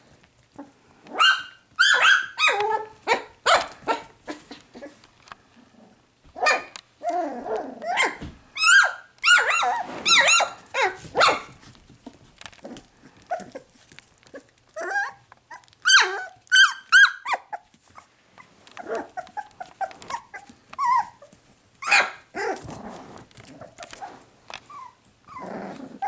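Puppies play-fighting, giving short high-pitched yaps and barks in several flurries.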